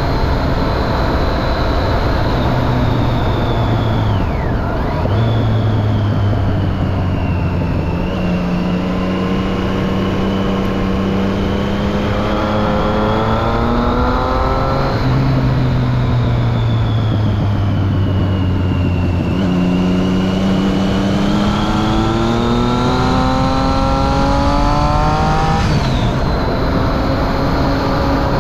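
Triumph Street Triple 675's inline three-cylinder engine running through a Remus Hypercone exhaust with the dB killer fitted. It accelerates twice, the pitch rising steadily for several seconds each time and then dropping suddenly, once about halfway through and again near the end.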